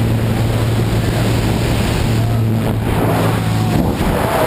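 Heavy wind rush buffeting the wrist-mounted camera's microphone at the open door of a small jump plane, over the steady drone of the plane's engine. About four seconds in the engine tone drops away as the tandem skydivers exit, leaving only the rush of freefall wind.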